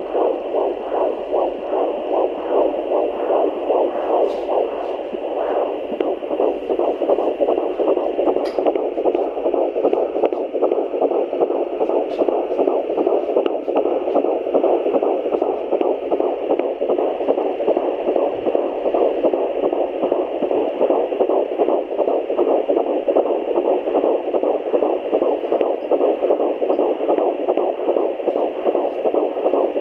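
Fetal heartbeat picked up by a fetal Doppler and heard through its speaker: a fast, galloping pulse over a steady hiss.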